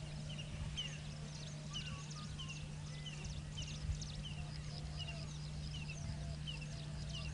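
Forest birds calling: a short falling chirp repeated about twice a second, with other quick high calls, over a steady low hum. A single knock about four seconds in.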